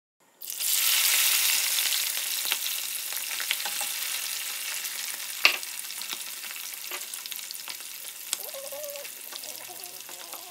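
Food deep-frying in a pot of hot oil: a dense sizzle with scattered sharp pops, one loud pop about halfway through. It starts abruptly and grows gradually quieter.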